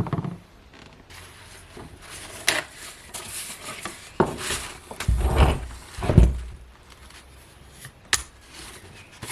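Irregular knocking and scraping of hard objects being handled, with two heavy dull thumps about five and six seconds in.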